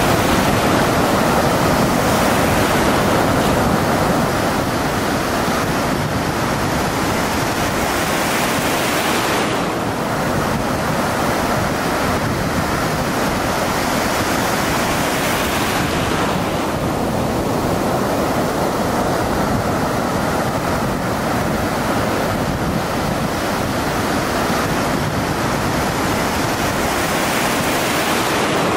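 A loud, steady rushing noise with no speech, its hiss swelling and easing slowly.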